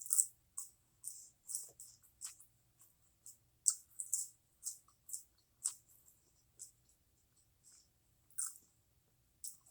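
Chewing food close to the microphone: irregular short wet mouth clicks and smacks, one or two a second.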